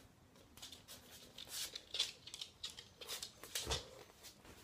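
Irregular light clicks and scuffles of movement on a hard floor as a small dog trots up close, with handling rustle from the moving phone.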